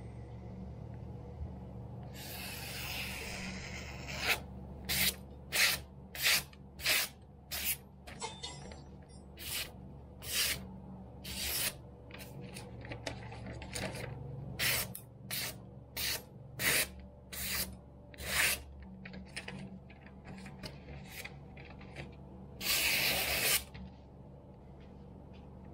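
Kitchen knife slicing through a sheet of magazine paper in a paper-cutting test of its edge. It makes a string of about twenty short, crisp swishes, with a longer slice about two seconds in and another near the end.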